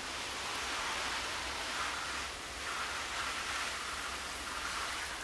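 Steady hiss of water sprayed onto the soil as the beds are given a good soaking, easing briefly about halfway through.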